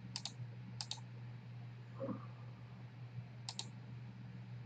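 Computer mouse clicking: three quick double clicks, at the start, just under a second in, and about three and a half seconds in, over a low steady hum.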